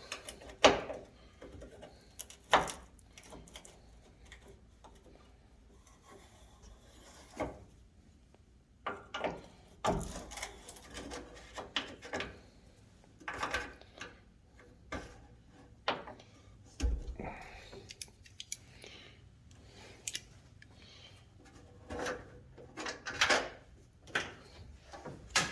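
Hand disassembly in an old pickup's cab: scattered sharp clicks and knocks with stretches of rubbing and scraping as parts are worked loose and handled.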